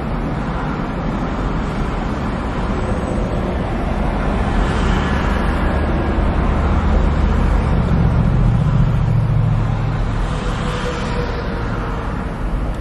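Road traffic rumbling by, growing louder about halfway through as a vehicle passes, then easing off.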